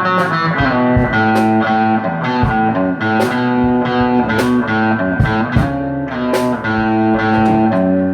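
Electric guitar playing a melodic line of held notes that step up and down in pitch, with sharp attacks on some notes.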